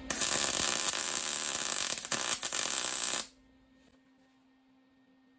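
MIG welder arc laying a quick tack weld that joins a steel hinge leaf to a steel mounting plate, running with a steady crackle for about three seconds and then cutting off abruptly. A faint steady hum remains afterwards.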